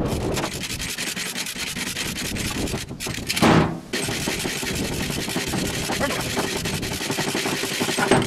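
A hand-operated chain hoist (come-along) ratchets in a fast, continuous run of clicks as its chain drags a 4.8 L V8 engine out of the van's engine bay and onto the trailer. There is one louder, brief noise about three and a half seconds in.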